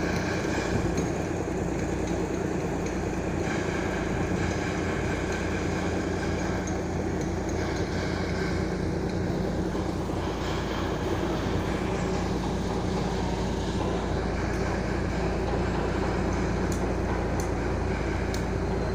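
Boat engine running steadily: a constant low drone that holds the same pitch and level throughout.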